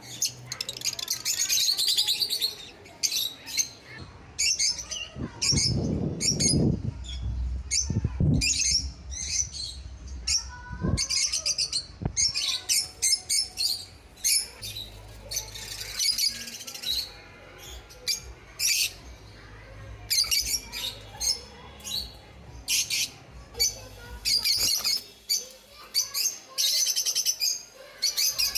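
Many lovebirds chattering together in rapid, shrill chirps and squawks, with a brief low rumbling noise about six seconds in.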